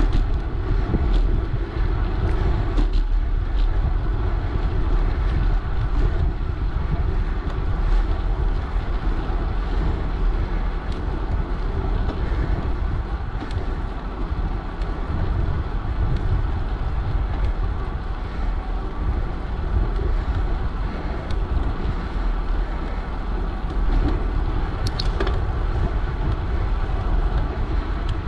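Riding noise from a moving bicycle heard on its own camera: a steady rush of wind on the microphone, heaviest in the low rumble, mixed with tyres rolling on asphalt.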